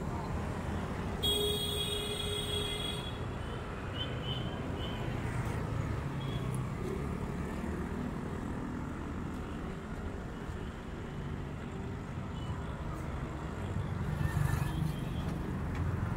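Road traffic on a busy city street: a steady rumble of passing vehicles, with a brief high-pitched tone about a second in and a vehicle passing louder near the end.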